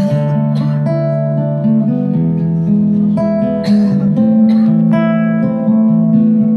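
Acoustic guitar played live, picked chords ringing into one another with a few sharper strummed accents, one at the start and one a little past the middle. No singing.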